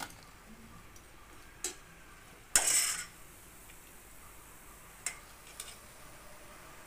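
A steel ladle knocking against metal cooking pots: a few light clinks, and one louder scraping clatter about two and a half seconds in.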